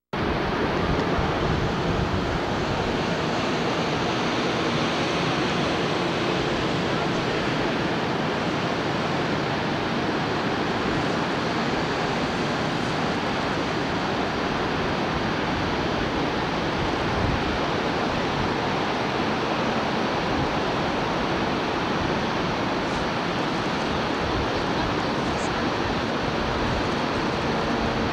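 Niagara Falls: the steady rush of the falling water, an even noise with no breaks.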